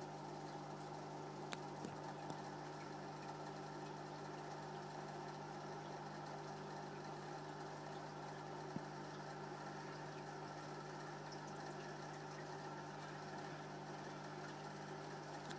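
Steady low hum of aquarium equipment running, with a couple of faint clicks.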